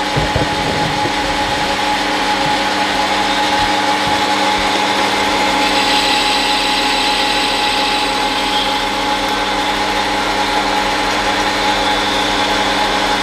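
Small metal-turning lathe running with a steady motor and gear whine as the disc in its chuck spins. A harsher hiss comes in for a couple of seconds about six seconds in, and the machine stops right at the end.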